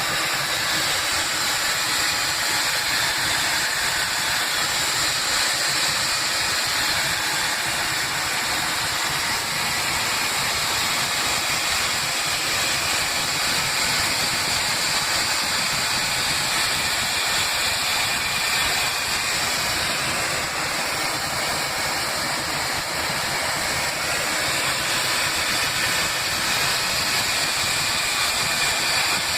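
Loud, continuous hissing inside an airliner cabin in flight, steady and unbroken, heard from near the front exit door over the engine and airflow noise. It is loud enough to drown out talk between neighbouring passengers.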